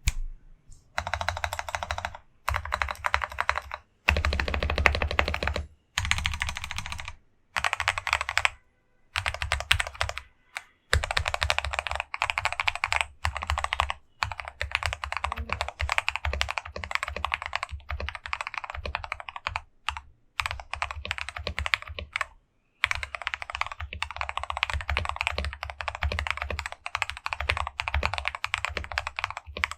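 Typing on a mechanical keyboard with lubed Gateron Brown tactile switches: streams of deep, thocky keystrokes in bursts of a few seconds, broken by short pauses.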